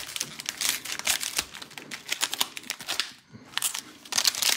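Plastic trading card pack wrappers crinkling as they are handled and snipped open with scissors: a run of crackly rustles, a brief lull, then a louder burst of crinkling near the end.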